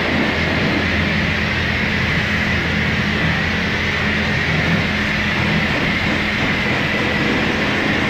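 Pressure washer running and spraying steadily.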